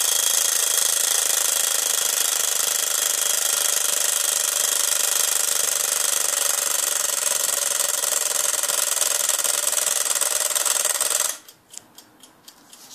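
Mechanical alarm clock's bell ringing continuously, cutting off abruptly near the end, after which the clock's movement ticks at about three ticks a second.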